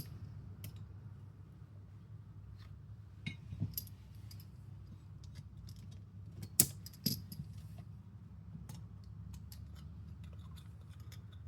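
Small metal and plastic parts of an opened airsoft V2 gearbox clicking and clinking as they are handled, with two sharper clacks just past the middle, over a steady low hum.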